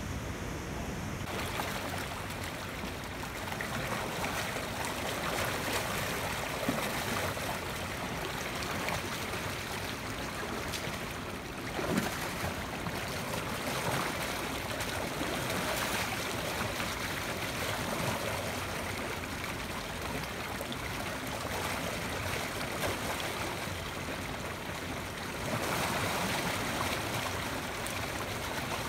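Creek water pouring over a concrete weir, a steady rushing, with two brief knocks partway through.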